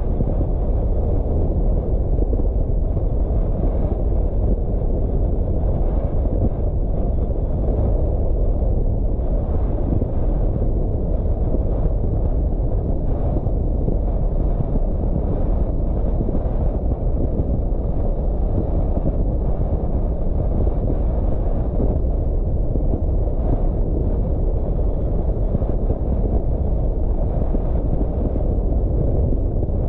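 Steady low rumble of a car driving along: road, tyre and wind noise at an even level, with no rise or fall of engine pitch.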